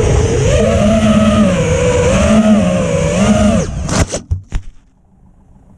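Four iFlight 1750KV brushless motors of a 5-inch FPV quadcopter whining on 5-inch propellers, heard through the onboard GoPro, the pitch rising and falling with the throttle. Near the end the drone comes down in the grass with a few sharp knocks and the motors stop.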